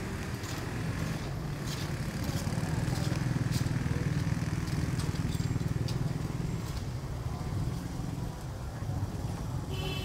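A low engine rumble grows louder for several seconds around the middle, then eases off. Faint scattered clicks sound over it.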